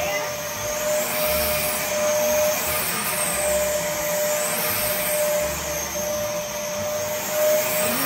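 Red upright vacuum cleaner running with a steady motor whine, its hose attachment worked back and forth over sofa upholstery.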